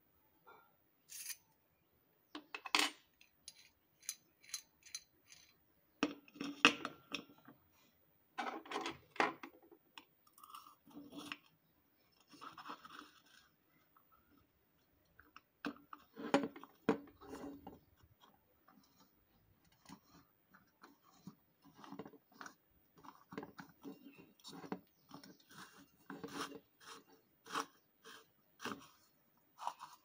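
Bearing puller being fitted to a ceiling fan's end-cover bearing and its T-handles turned. Irregular metal clinks, scrapes and rubbing, with a run of quick clicks in the second half.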